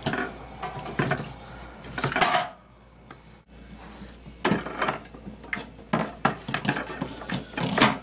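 Aluminium soda cans being pushed into the wire can-dispenser rack on a compact refrigerator's door, knocking and clinking against the rack and each other. A string of sharp knocks, with a brief lull about two and a half seconds in.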